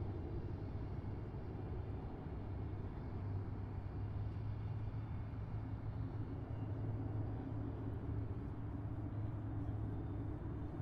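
Electric pedestal fan running steadily close by: a low motor hum with a whoosh of moving air, the hum growing a little stronger a few seconds in.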